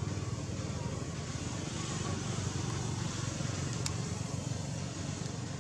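Steady low rumbling background noise, even throughout, with a single faint click about four seconds in.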